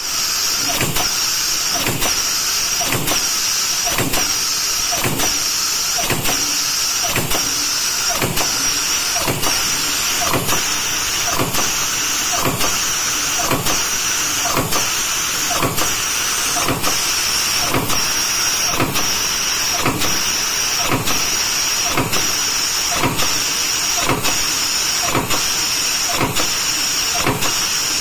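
Punch press running a progressive die with an in-die tapping unit, cycling continuously: a regular stroke about twice a second over a steady high hiss.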